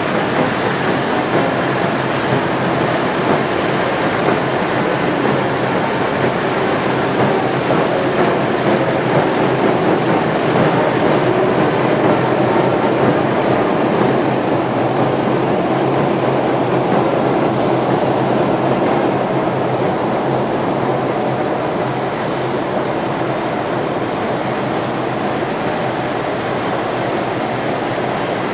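A column of tracked armoured vehicles driving past: a loud, steady din of engines and running steel tracks.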